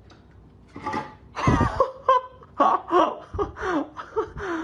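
A person laughing hard in short repeated bursts, starting about a second in.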